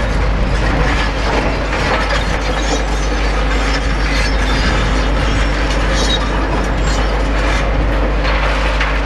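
Demolition excavator pulling down a building: steady clattering and crunching of breaking rubble and metal, with no break.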